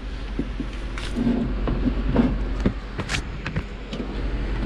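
Scattered light knocks and clicks of metal generator mounting brackets and drip-pan hardware being handled, with a few brief scuffs between them.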